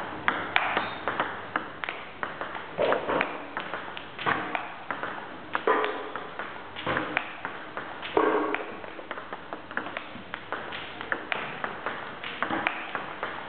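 Table tennis rally: a celluloid ball clicking off rubber-covered bats and bouncing on the table, two to three sharp clicks a second in a fast, uneven rhythm.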